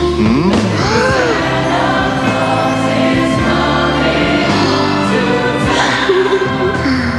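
Music: a choir singing over instrumental backing.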